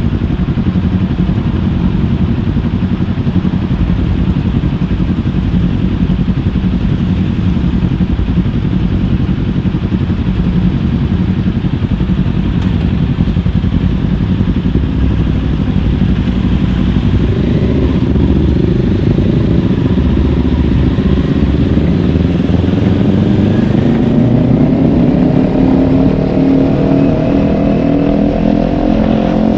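Kawasaki Ninja 400's parallel-twin engine running steadily at low revs, then accelerating, its pitch climbing gradually through the last third and rising faster near the end.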